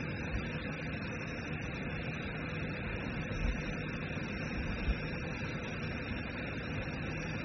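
Steady background noise with a faint low hum, carried over an open video-call line, with two faint bumps about three and a half and five seconds in.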